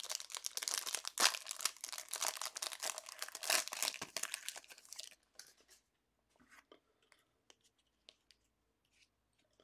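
Plastic cellophane wrapper being torn open and crinkled off a pack of trading cards for about five seconds. After that come only faint scattered clicks and rustles of the cards being handled.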